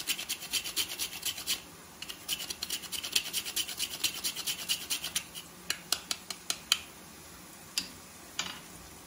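Whole nutmeg grated on a small handheld metal grater: quick rasping strokes, several a second, with a short pause about one and a half seconds in, stopping about seven seconds in. A couple of light knocks follow near the end.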